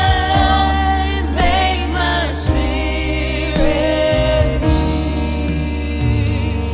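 Gospel worship music: singing with instrumental backing, a steady bass line under held chords.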